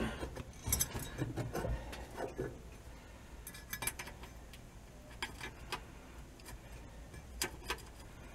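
Hand ratchet clicking in short, scattered bursts as screws are driven down to fasten the parking brake lever boot retainer to the floor, with faint clinks of metal tools.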